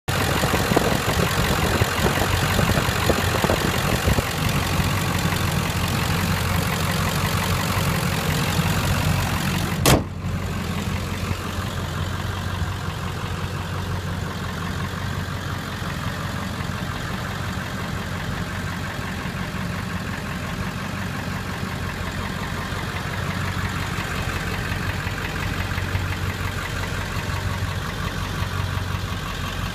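Ford 7.3-litre Power Stroke turbo-diesel V8 idling steadily. A single sharp knock comes about ten seconds in, after which the engine sounds quieter.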